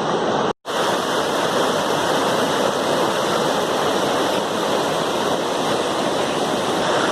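Floodwater of an overflowing stream rushing in spate, a loud, steady rush, with a brief dropout to silence about half a second in.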